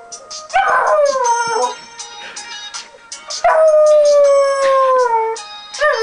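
Rottweiler puppy howling at a ringing phone alarm: two long howls that slide down in pitch, about half a second and three and a half seconds in, with a third starting near the end. The phone's repeating electronic alarm tone sounds behind them.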